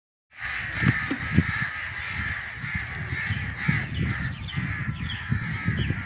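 Crows cawing repeatedly over one another, with short higher chirps from other birds.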